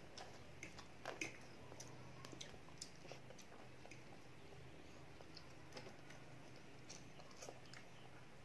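Faint eating sounds of children having spaghetti: chewing, with scattered light clicks of metal forks on ceramic plates, the loudest a little after a second in. A faint low hum runs underneath.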